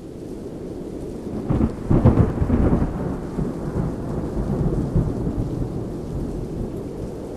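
Thunder rumbling in a thunderstorm over steady rain: the rumble builds, peaks about two seconds in with a loud crack-like burst, then rolls on and slowly eases.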